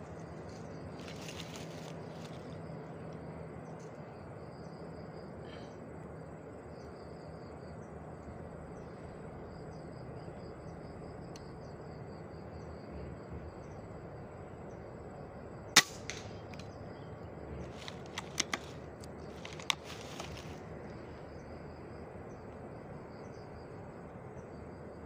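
A single sharp air-rifle shot about two thirds of the way through, followed a couple of seconds later by a few lighter clicks. Insects chirp steadily throughout.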